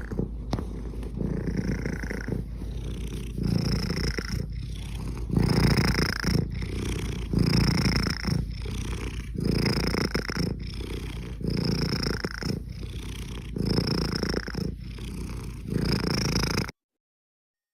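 Sleeping domestic cat snoring close to the microphone: a steady low rumble with a short high whistle on each breath, about one breath every two seconds. It cuts off suddenly near the end.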